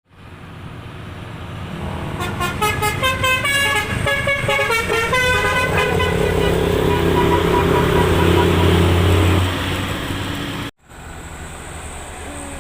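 A bus's Basuri 'telolet' musical air horn playing a quick run of stepping notes, then holding one long chord for about four seconds before stopping, over the low rumble of the bus engine. After a brief cut-out near the end, a steadier road noise follows.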